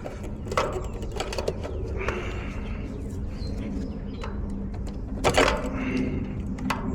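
Scattered clicks and light clatter of hands and tools working on an air-conditioner's outdoor unit, with a louder clatter about five seconds in, over a steady low hum.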